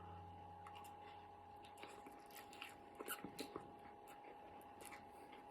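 Faint chewing of chewy instant noodles, with a few soft mouth clicks about two to four seconds in, over a faint steady hum.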